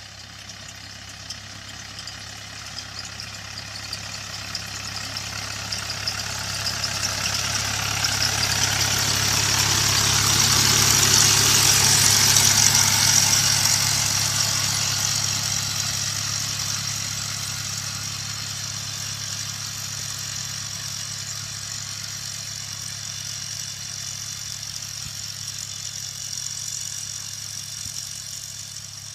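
Engine of farm machinery running steadily, growing louder to a peak about halfway through and then slowly fading, as if it drives past.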